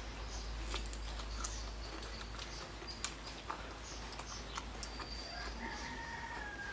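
Close-up chewing sounds: wet mouth clicks and smacks as a mouthful of fried food is eaten. Short high chirps in the background, with a longer two-tone call near the end.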